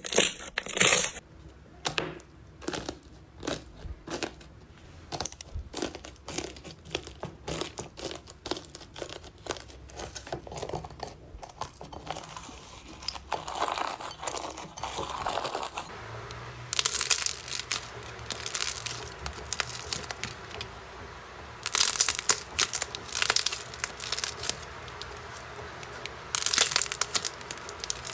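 Slime being squeezed and stretched by hand, giving a run of sharp clicks and pops, then denser crackling bursts from about halfway through.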